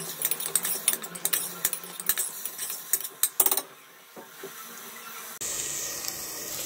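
Chopped onions frying with salt in a stainless steel pot, crackling with many quick ticks as they are stirred, then settling into a steady sizzle near the end.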